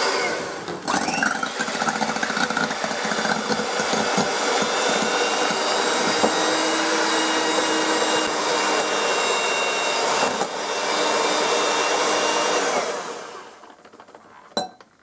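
Electric hand mixer whisking egg whites into foam in a glass bowl, running steadily, then winding down and stopping about thirteen seconds in. A sharp knock follows near the end.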